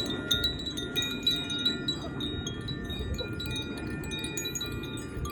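Zaphir chime ringing as it is swung, its clapper tinkling against the tuned rods in many small strikes that leave clear, overlapping tones hanging, with a steady low rush underneath.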